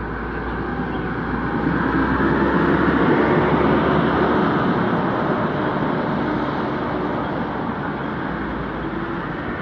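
Road traffic running: a steady vehicle engine and tyre noise that swells about two seconds in and eases off again.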